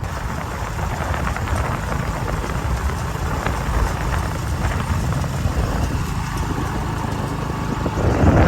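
Vehicle engine running steadily while travelling along a road, with road and air noise, growing louder near the end.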